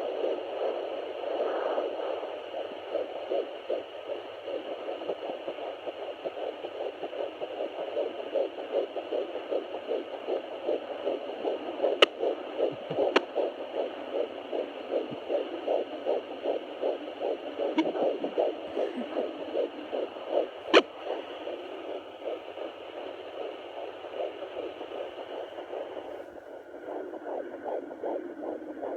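Fetal heartbeat at 13 weeks heard through a Sonoline B handheld fetal Doppler's speaker: fast, rhythmic whooshing pulses over a steady static hiss, with a few sharp clicks midway.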